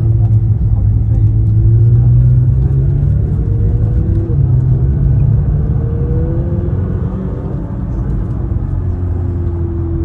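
McLaren 720S's twin-turbo V8 engine running while the car drives, heard from inside the cabin over a steady low road rumble. Its pitch drifts gently up and down as the revs change, easing off a little after the middle.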